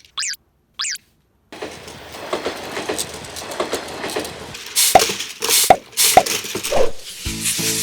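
Battery-powered Plarail toy train, a Hiro engine pulling a long string of freight wagons, running along plastic track with a steady rattle and many small clicks. A few louder clattering knocks come about five to seven seconds in. Two short whistle-like sweeps sound in the first second, and a tune begins near the end.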